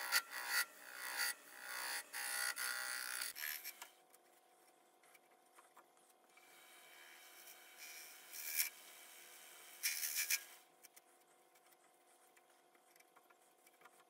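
Rasping scrape of a cutting tool on wood: a run of short strokes for the first three and a half seconds, then two brief scrapes near the end against a faint steady hum.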